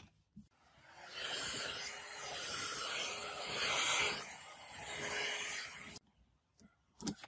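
Electric heat gun switched on, its fan motor spinning up to a steady blowing hiss, then cut off suddenly about six seconds in, warming vinyl wrap film. A few sharp snips or clicks follow near the end.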